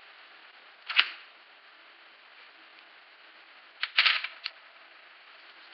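Sharp clicks of hard plastic toy parts being handled: one about a second in, then a quick cluster of three or four about four seconds in.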